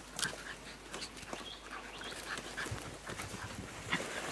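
Two small shaggy dogs play-fighting, with many short, sharp yaps and growls and their feet scuffling in loose dirt.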